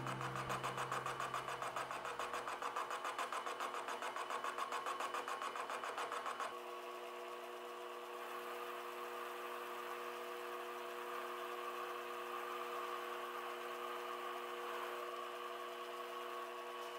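Small metal lathe turning a crankshaft workpiece, the cutting tool taking a cut and throwing chips. A pulsing about six times a second for the first six or so seconds, then a steadier hum with a steady whine.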